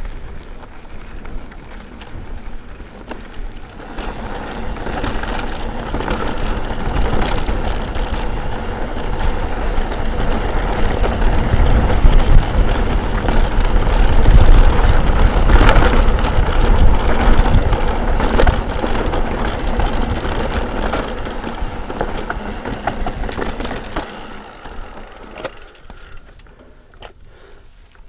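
Mountain bike riding a trail at speed: wind rushing over the microphone and tyres running over the ground, with frequent rattles and knocks from the bike. It grows louder over the first several seconds and fades away near the end.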